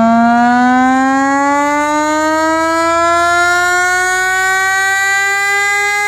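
Chrysler air-raid siren, driven by a Hemi V8 engine, wailing loudly. Its pitch rises steadily as it is throttled up toward full throttle.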